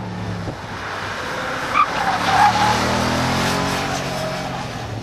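Audi S5 coupe's V8 engine running hard as the car is driven through a track corner, with its tyres squealing briefly about two seconds in.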